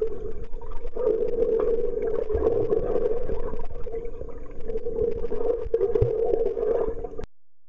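Muffled underwater sound in a swimming pool, picked up by a submerged camera: a steady hum with water movement and a few low thumps, cutting off suddenly near the end.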